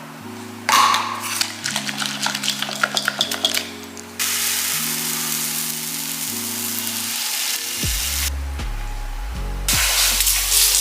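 Food sizzling in a frying pan, a steady hiss that starts about four seconds in and drops out briefly near the end before coming back. Just before it there is a quick run of clicks and taps, under background music with slow changing chords.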